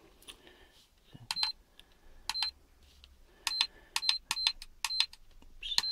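Turnigy Accucell 6 hobby battery charger beeping as its buttons are pressed to change the charge settings. About eight short, high beeps, each with a faint button click, come at uneven intervals.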